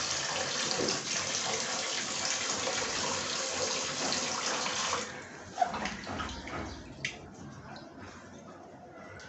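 Tap water running into a steel bowl as cut rohu fish pieces are washed by hand. The tap stops about five seconds in, leaving quieter splashing and small knocks as the pieces are moved around in the bowl.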